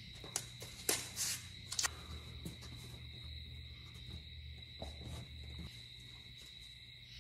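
Cardboard sheets and painter's tape being handled: scattered short rustles, taps and clicks, most of them in the first two seconds, over a steady faint high-pitched whine and low hum.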